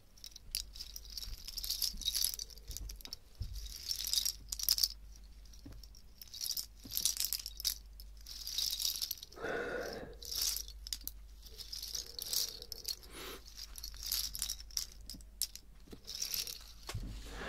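Small wooden pieces rattled and clicked together in cupped hands close to the microphones, in bursts of bright clicking with short pauses between; the clicks sound glassy.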